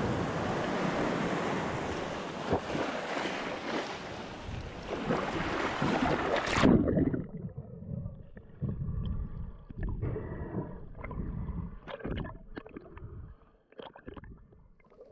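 Shallow water washing and splashing at the shoreline as someone wades in. About six and a half seconds in, the sound suddenly turns muffled as the camera goes under the surface, leaving a low underwater rumble with scattered clicks and bubbling that dies down near the end.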